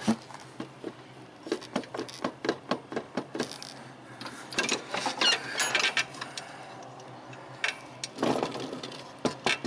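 Riding mower blade spindle turned by hand at its pulley, giving a rough, irregular run of clicks and grinding rattles from its bearings. The bearings are worn out.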